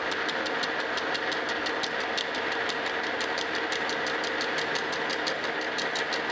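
Metal lathe running while a carbide cutter takes a facing cut on a brazed cast iron lever casting. A steady machine hum carries a rapid, even ticking, about seven or eight ticks a second, as the tool meets the uneven brazed face.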